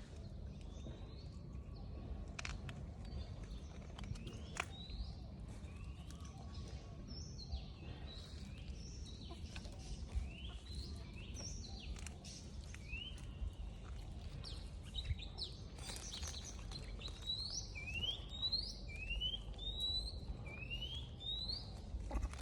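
A bird calling over and over: short rising whistles, coming in a quick regular run of about one every two-thirds of a second in the latter part, over a steady low background rumble.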